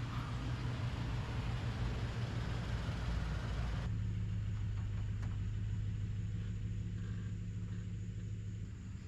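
A vehicle engine idling with a steady low hum. A hiss over it stops suddenly about four seconds in, leaving the hum.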